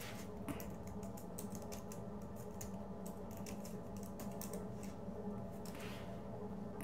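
Typing on a computer keyboard: a quick, uneven run of key clicks that thins out near the end, over a steady low hum.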